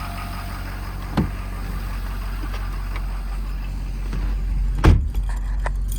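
Ford 6.7 L Power Stroke V8 diesel idling steadily, with a knock about a second in and a loud thump, a door shutting, near the end, followed by a few light clicks.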